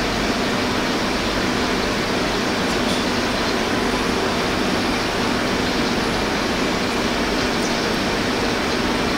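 CNC die-sinking EDM machine running: a steady, even rushing noise with a faint low hum underneath.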